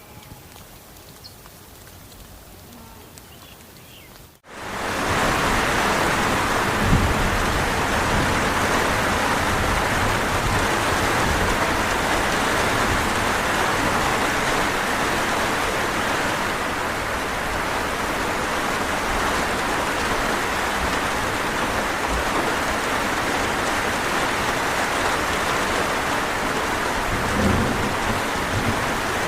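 Steady rain that comes in abruptly about four seconds in, after a few quieter seconds, and keeps an even, unbroken hiss.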